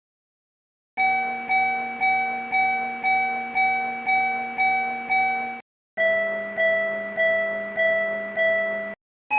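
Railroad crossing warning bell ringing in a steady clang-clang rhythm, about two strikes a second, starting about a second in. Near the middle it stops and a lower-pitched crossing bell takes over with a slightly slower beat.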